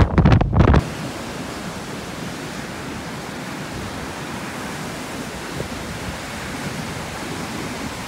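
Wind buffeting the microphone in heavy gusts for less than a second. It then cuts off suddenly to the steady rushing of large storm waves breaking against a rocky, ice-covered shore.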